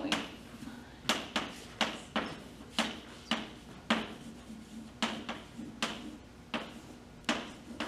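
Chalk writing on a chalkboard: a dozen or so sharp, irregular taps and short scrapes as numbers and letters are chalked in.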